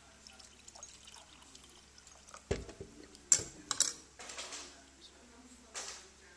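Close-miked eating sounds: a few sharp, wet clicks and smacks from the mouth and food, with a short hiss in the middle.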